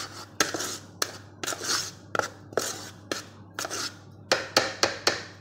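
Gloved hand mixing a flour and sugar mixture in a plastic bowl by hand, making short scraping, rustling strokes about two a second.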